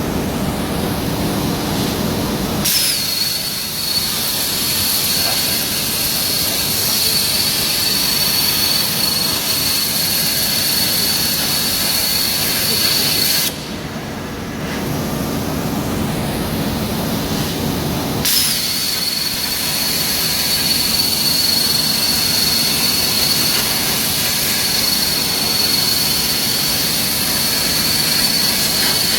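Hypertherm HPR260XD plasma torch cutting on a CNC table: a loud steady hiss with a thin high whine. The arc strikes about three seconds in and cuts for about ten seconds. It stops, leaving a quieter, lower hiss for about five seconds, then strikes again for a second long cut.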